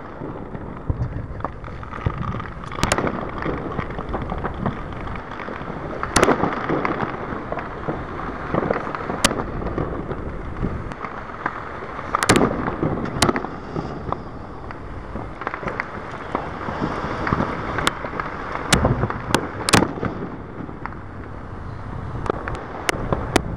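Distant aerial fireworks going off: about a dozen sharp bangs at irregular intervals, each with a short echoing tail, over a steady low background rumble.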